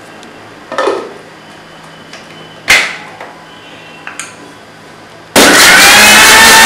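Steel mixer-grinder jar and lid being handled, with a few knocks and one sharp metallic clank as the lid goes on; then about five seconds in a Panasonic mixer grinder switches on abruptly and runs loudly with a high whine, beating eggs to a froth.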